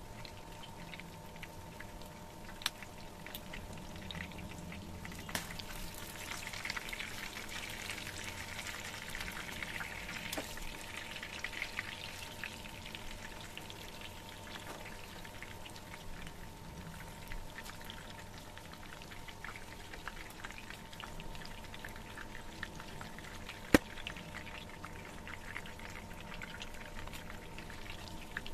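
Chicken leg quarters sizzling and crackling as they shallow-fry in hot oil in a pan, the crackle thickest for a stretch several seconds in. A single sharp click stands out near the end.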